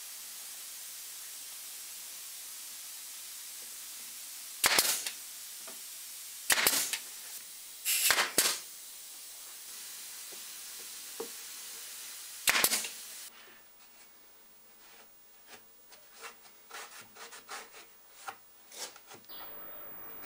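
A pneumatic brad nailer firing five times, each shot a sharp bang with a short hiss of air, over a steady background hiss. About two-thirds of the way in the hiss drops away, leaving light clicks and taps of wood pieces being handled.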